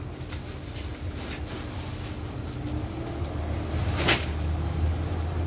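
Sack-handling noise: a low steady rumble with one sharp thump or knock about four seconds in.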